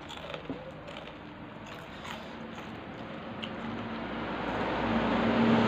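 Eating with the fingers: soft clicks and mouth sounds as rice and tempe are gathered from a plate and bitten. A low engine hum swells louder in the background near the end.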